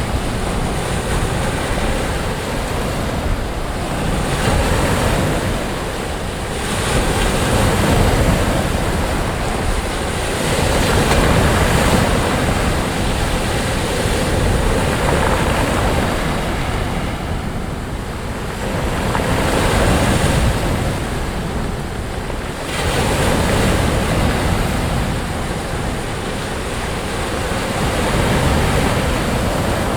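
Sea waves breaking and washing up onto a sandy beach, the surf swelling and easing in slow surges every few seconds, with some wind rumble on the microphone.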